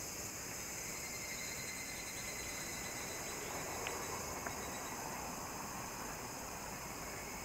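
Steady high-pitched drone of summer insects, with two faint clicks about halfway through.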